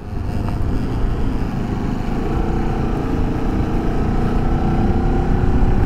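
Motorcycle engine running while riding, under a steady rumble of wind and road noise; about two seconds in the engine note comes through more clearly and climbs slowly in pitch.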